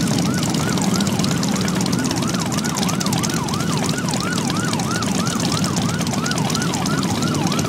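An emergency-vehicle siren sounding in a fast yelp pattern, about three pitch sweeps a second, over the steady low rumble of motorcycle engines.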